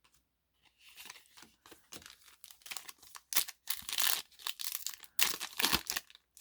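A foil Yu-Gi-Oh! booster pack being torn open and its wrapper crinkled: a series of tearing, rustling bursts, loudest about three to four seconds in and again just past five seconds.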